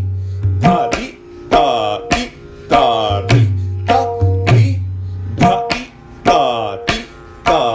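Tabla pair playing a theka slowly (dhi dhati ta ti ta, dhi ta…): sharp ringing strokes on the dayan over booming bass strokes of the bayan, in an uneven, lilting rhythm.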